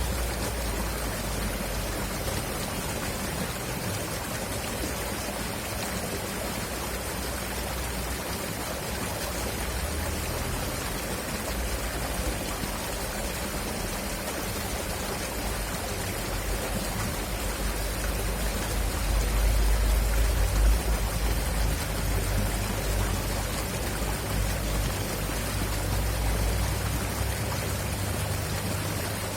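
River water flowing and rushing steadily, an even hiss with a low, shifting rumble that swells briefly about two-thirds of the way in.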